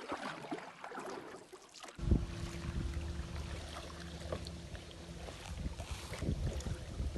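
Out on a lake in a kayak: about two seconds in, wind starts rumbling on the microphone, with a faint steady low hum underneath.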